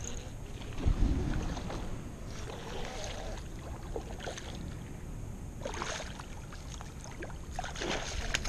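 A hooked largemouth bass splashing at the water's surface as it is reeled in on a baitcasting reel, with a few short splashes over a steady low wind rumble on the microphone.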